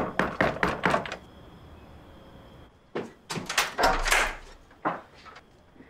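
Knuckles rapping quickly on a wooden door, about six knocks in the first second. A couple of seconds later the door's latch and lock clatter as the door is unlocked and opened, with one more thump shortly after.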